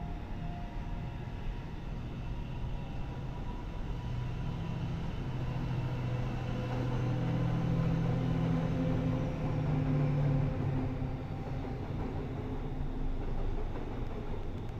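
DF200 diesel-electric locomotive hauling a container freight train past with a steady rumble of wheels on rail. The locomotive's low diesel engine drone builds, is loudest about two-thirds of the way through, then fades.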